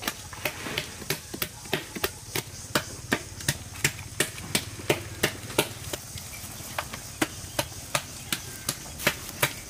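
Dry leaves and twigs catching fire and crackling, a fast run of sharp snaps about three a second over a faint hiss, softer in the second half.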